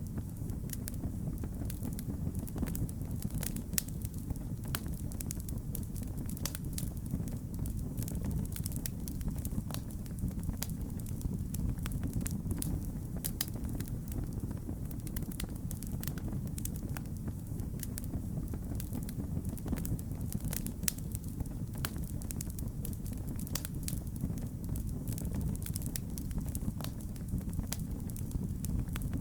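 Fireplace fire crackling: frequent irregular sharp pops and snaps over a steady low rumble.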